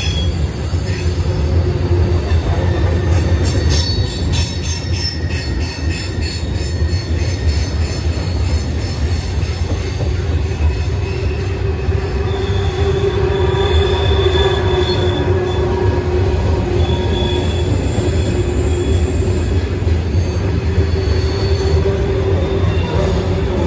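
Norfolk Southern freight cars rolling past close by: a loud, steady rumble of steel wheels on rail, with wheels squealing on and off and some light clicking in the first few seconds.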